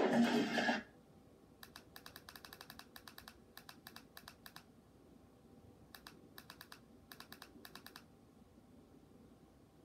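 TV soundtrack with music that cuts off under a second in, followed by two runs of rapid clicking, about five clicks a second, from the buttons of a TV-box remote control being pressed to scroll down an on-screen menu.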